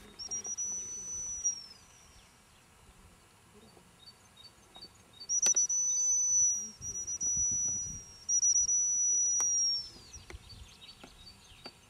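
A handler's gundog whistle blown in four long, steady, high blasts, some with a brief warble at the start and dropping in pitch as each one ends. These are whistle commands to a working retriever out in the field.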